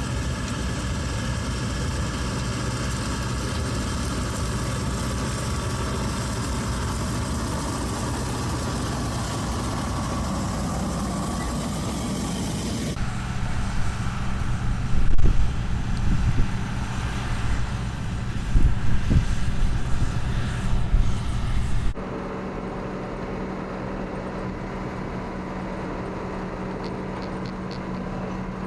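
John Deere 6600 combine's six-cylinder diesel engine running steadily. About halfway through, the sound changes abruptly to a louder, uneven run of low thumps, then drops to a quieter, steadier engine hum for the last several seconds.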